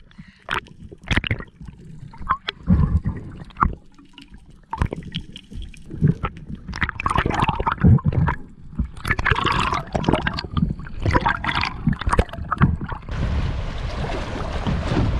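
Water gurgling and splashing around the microphone, with many short knocks. About two seconds before the end a steady rushing noise of wind and water takes over.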